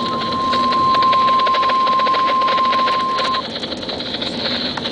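NOAA Weather Radio 1050 Hz warning alert tone, a single steady high tone from the Radio Shack 12-993 weather radio's speaker, cutting off about three and a half seconds in. Hiss and rapid crackling static from the radio reception run under it and continue after it.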